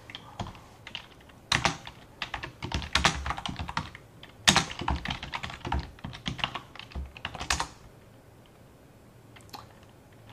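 Typing on a computer keyboard: quick runs of keystrokes with short pauses, stopping about three-quarters of the way through.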